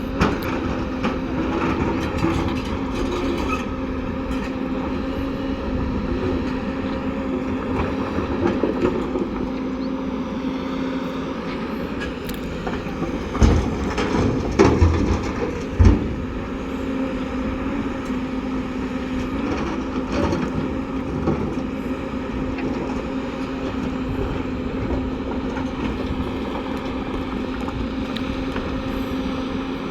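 Heavy diesel engine of a bulldozer running steadily under load, with a few heavy metallic clanks about halfway through.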